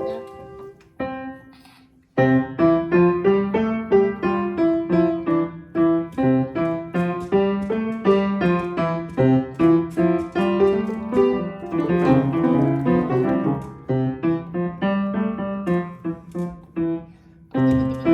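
Piano played loud and fast with both hands by a learner: a few notes, a short pause about two seconds in, then a rapid stream of repeated notes and chords that is densest about two-thirds of the way through, with a brief break near the end.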